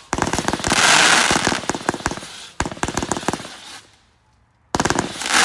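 Fireworks crackling in rapid strings of pops with a hiss, in two bursts with a short lull about four seconds in.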